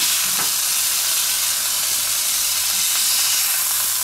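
Beef steaks sizzling on the hot ribbed plates of an OptiGrill electric contact grill: a steady hiss.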